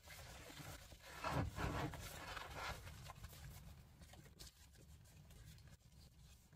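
Paper and card pages of a thick handmade junk journal rustling and crinkling as the book is opened and turned by hand, with fabric and paper rubbing. The rustle is loudest about one to three seconds in, then settles into quieter scattered rustles.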